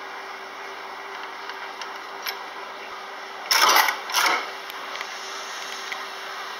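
Coin slide on a coin-operated commercial washer being pushed in and drawn back out: two loud metallic clatters about half a second apart, past the middle, over a steady low hum.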